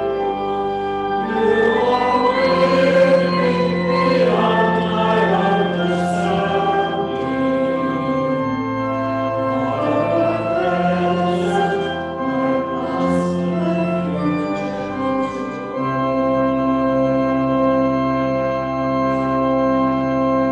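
Church choir singing a hymn to organ accompaniment, the organ holding sustained chords over a moving bass line. In the last few seconds the final chord is held, then stops.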